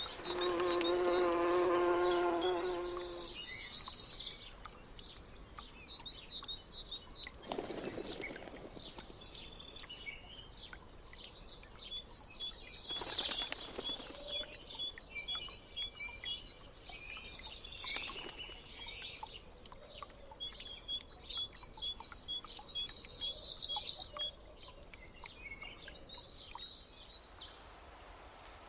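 An insect buzzes close by for about the first three seconds, then small songbirds chirp and sing, some in quick runs of repeated notes. Three brief rushing sounds come in between.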